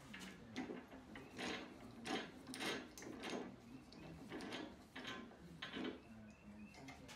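Steel bar clamp being tightened across a walnut cabinet case, its screw handle turned in a series of short, uneven scraping strokes of metal and wood.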